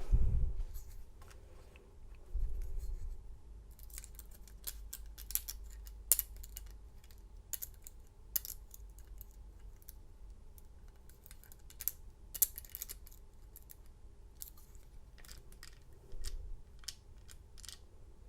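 Lock picks working in the keyway of a vintage Master Lock U bike lock: irregular small metallic clicks and scratches as the pins are probed, with a few dull knocks from handling the lock.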